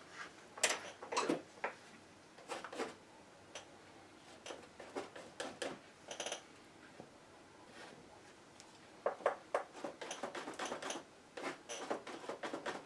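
Oil-painting tools, a metal palette knife and brush, worked against canvas and palette: irregular scrapes and taps in clusters, with a couple of small ringing metal clinks.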